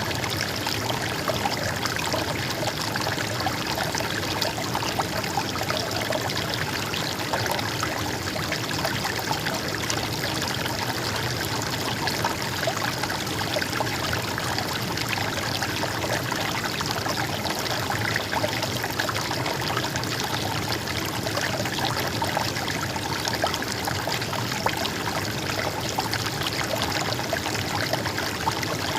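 Water flowing and trickling steadily, a small stream babbling over stones, with no break.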